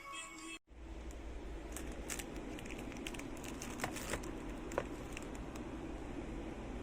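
Music cuts off about half a second in. After that come scattered small clicks and crinkling over a steady low hum.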